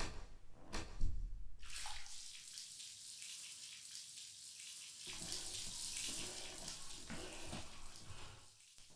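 A sharp click and a knock, then a steady rush like water running from a tap for several seconds, fading away near the end.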